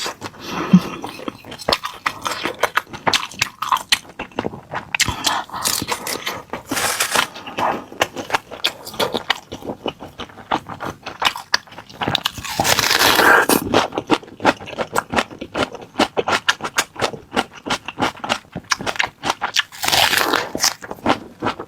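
Someone biting and chewing a crispy chicken-skin leg roll, dense crunchy crackles throughout, with two longer, louder crackling stretches about 12 and 20 seconds in.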